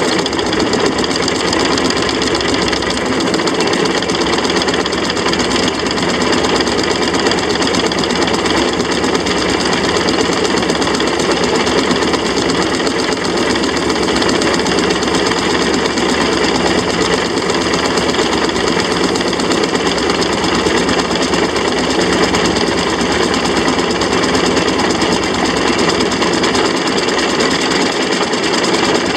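A 6-inch scale Samson steam traction engine driving along, heard close up from the footplate: a steady, unchanging mechanical running noise.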